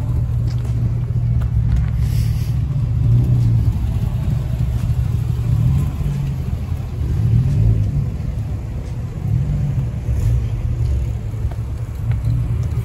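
Car engine running, its pitch rising and falling a few times.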